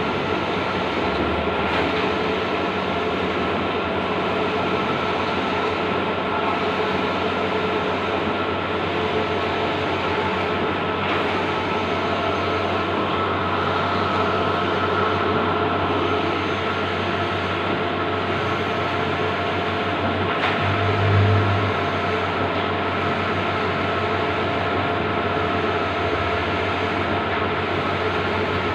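Bluewin large-format outdoor digital printer running: a steady mechanical hum and whir with a few steady tones. Faint rises and falls come every couple of seconds, and there is one brief low thump about two-thirds of the way through.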